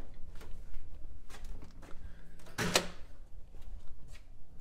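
Footsteps and handheld-camera handling noise, with a few light knocks and one louder clunk about two-thirds of the way through as a door is opened.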